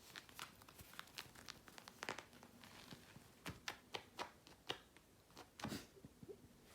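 Kitten kicking and clawing at a hessian caterpillar kicker toy: an irregular string of quick, faint scratchy rustles of claws on coarse fabric.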